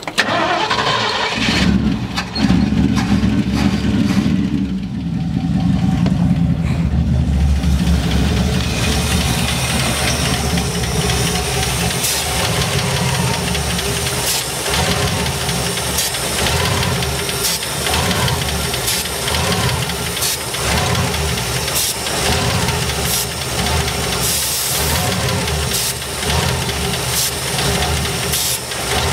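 1972 Ford F100's engine cranking and catching about a second and a half in, then running rough with an uneven, pulsing beat. Its Edelbrock carburetor is overflowing the float bowls, which the owner puts down to stuck float needles.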